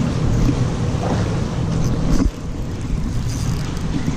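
Wind rumbling on the microphone over choppy water around a small canoe, with a dull thump about two seconds in, after which the rumble eases slightly.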